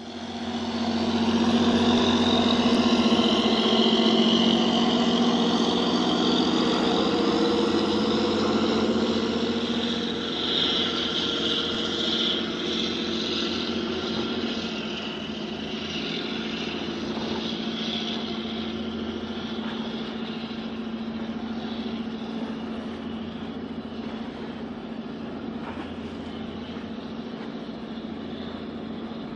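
Cement carrier's engine and machinery droning steadily with a low hum as it passes close by, slowly getting quieter over the second half.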